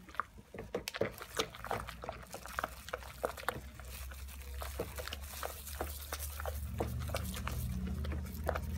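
A stick stirring water in a plastic basin while SLS granules are poured in: repeated sloshing splashes and knocks against the basin, with a steadier low sound building near the end.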